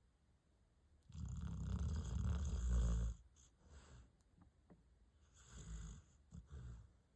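Dog snoring in its sleep: one long snore of about two seconds, then a shorter, fainter snore near the end.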